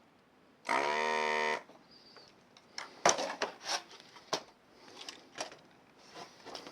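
Hakko FR-301 desoldering gun's vacuum pump running in one loud buzz just under a second long, about a second in, sucking molten solder from a joint. It is followed by a scatter of light clicks and taps.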